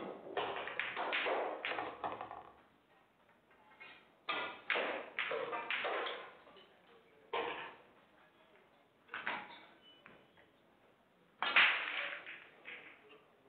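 Pool balls clacking after a shot: the cue ball strikes and scatters the object balls and a ball drops into a pocket, followed by further scattered sharp clicks and knocks, with a loud one near the end.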